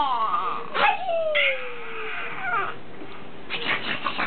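A baby's whimpering cries: a pitched cry falling away at the start, then a long, thin cry gliding down in pitch, followed by a hoarser fussing sound and short choppy noises near the end.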